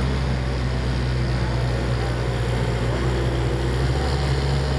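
Compact wheel loader's engine running steadily at constant speed: a low, even drone.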